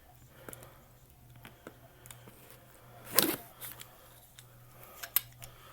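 Cardboard shipping box being handled and opened: scattered light clicks and rustles, with one louder scrape about three seconds in and a sharp click near the end.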